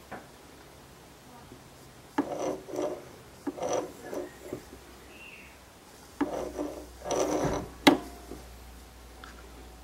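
Wood scraping and rubbing in several short bouts as a pine board jig is shifted and the twist bit is lowered into its pilot hole to line them up, with a sharp click about eight seconds in.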